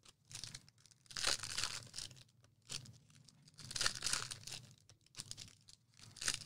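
Foil trading-card pack wrapper being torn open and crinkled by hand, in several short bursts of tearing and rustling.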